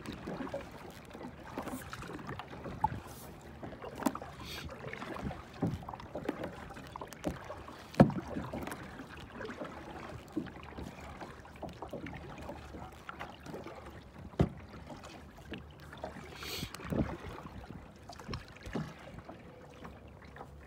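Kayak paddling: a double-bladed paddle dipping and splashing in the water, with irregular sharp knocks against the plastic hull, the loudest about eight seconds in.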